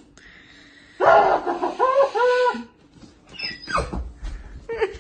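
A dog barking a few times in quick succession, starting suddenly about a second in.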